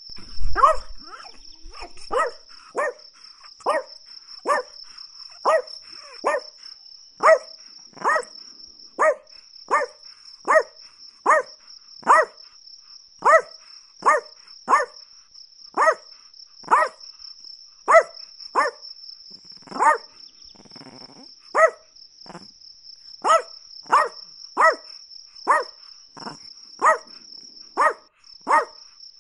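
Chihuahua barking over and over in short, evenly spaced barks, about three every two seconds. A steady high cricket-like trill runs underneath.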